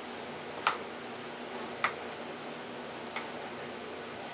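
Metal spoon clinking against a ceramic bowl three times while stirring rotini pasta with shredded cheese, about one clink every second and a bit, over a faint steady hum.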